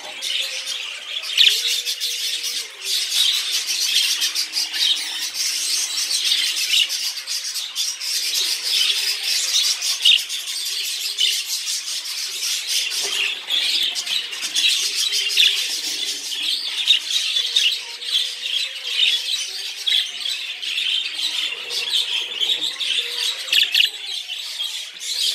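Budgerigar warbling: a continuous fast, scratchy chatter of clicks and squeaks with no pauses.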